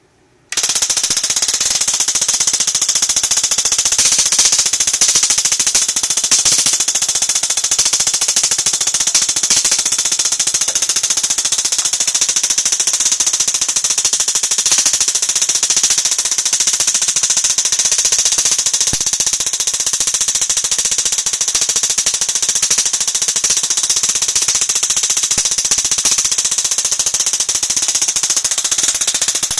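High-voltage spark gap of a 60 Hz resonant circuit driven by a large neon sign transformer, firing continuously as a loud, dense, steady crackle of sparks. It starts abruptly about half a second in. The voltage is turned right up, as this large a capacitance needs for a steady spark.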